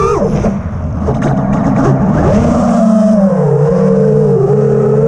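Brushless motors of a 6S FPV freestyle quadcopter whining, heard from the onboard camera. Right at the start the pitch climbs and then drops sharply as the throttle changes. A rough, uneven stretch follows for about two seconds, then a steadier whine that sinks slowly in pitch.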